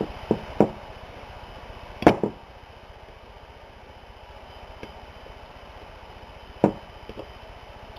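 Hand tools clicking and tapping against a Ford AOD transmission valve body as a valve is worked out of its bore: a handful of sharp, separate metal clicks, the loudest about two seconds in, over a faint steady hum.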